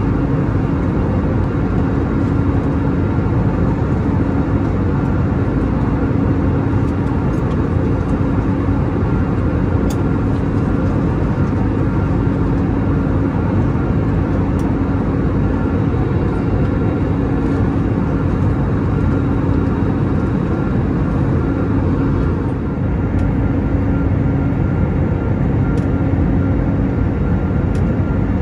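Steady cabin noise of an Airbus A320neo in flight, heard from a window seat over the wing: a rumble of engine and airflow with a steady hum. The sound dips briefly and shifts slightly about 22 seconds in.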